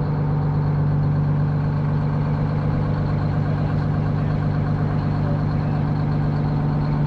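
Semi truck's diesel engine idling steadily, a low, even engine sound with no change in pace.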